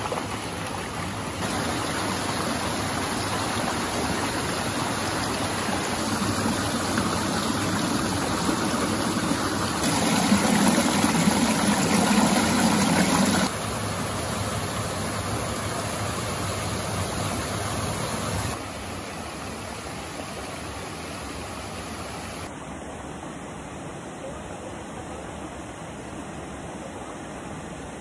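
Shallow rocky river rushing over boulders and small cascades: a steady water rush that jumps abruptly louder and softer several times, loudest for a few seconds around the middle.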